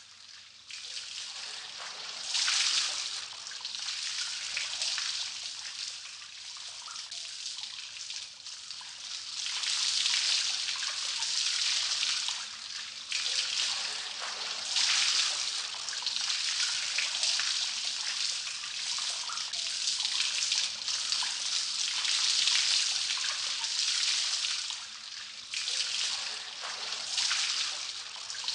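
Water trickling and dripping, draining from a stack of soaked books. It runs continuously, swelling and easing every few seconds.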